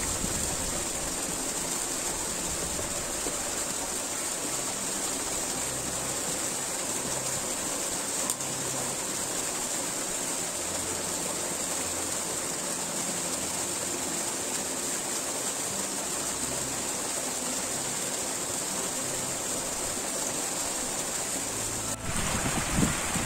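Small mountain stream cascading over rocks, a steady rushing of water; the sound gets louder and closer about 22 seconds in.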